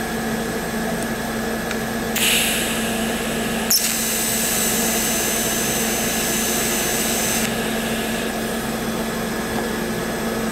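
TIG welder striking an arc to tack-weld thin steel at 70 amps. A hiss comes on about two seconds in. The arc then starts with a sharp click and runs with a steady high-pitched buzz for about three and a half seconds before cutting off, with the hiss trailing on briefly. A steady hum sits underneath.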